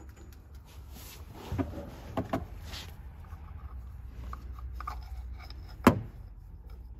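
Light handling noises and a few soft knocks as a metal oil filter cover with its greased gasket is fitted over the oil filter on a TGB 1000 engine case. Near the end one sharp click, the loudest sound, as the cover meets the case. A low steady hum runs underneath.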